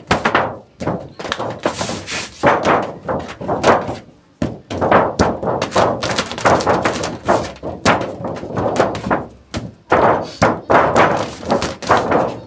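Repeated thunks and rubbing as a lump of hardened boiled sugar is pressed, folded and rolled by hand on a flat metal tray, in irregular strokes every half second or so.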